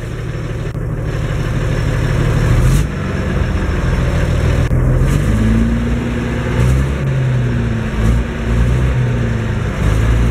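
Diesel engine of a Massey Ferguson 1102 (Eicher 3105) tractor heard from inside its cab. It runs and grows louder over the first few seconds, dips briefly about three seconds in, and then its note rises and falls.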